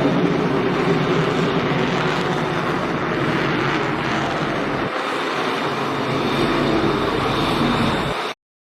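Fighter jet's engine noise, a loud steady rushing roar that cuts off suddenly a little over eight seconds in.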